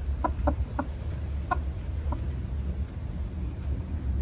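Broody silkie hens on a nest of eggs giving short clucks, about five in the first two seconds, over a low steady rumble.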